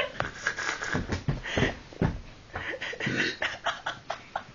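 Muffled rustling, scraping and bumping of a phone's microphone rubbing against clothing: irregular clicks and scuffs with a few dull thumps near the middle.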